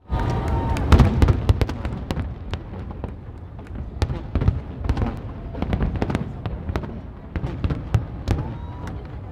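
Finale barrage of aerial firework shells: a rapid, irregular string of booming bursts and crackles, most tightly packed in the first couple of seconds.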